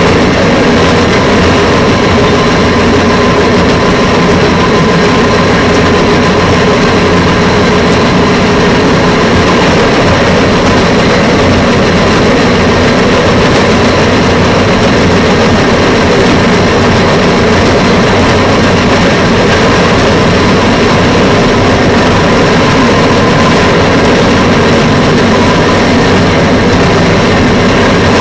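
Engine of a rail vehicle running steadily as it rolls along the track, a constant drone with steady hum tones mixed with running noise and no change in pace.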